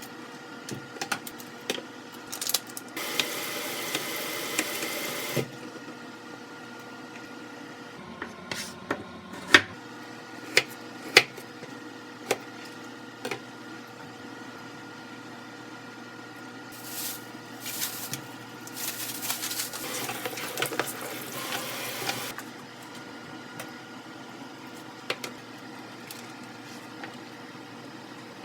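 Household kitchen work: scattered clinks and knocks of dishes and utensils, with two stretches of steady hissing, one a few seconds in and another about twenty seconds in.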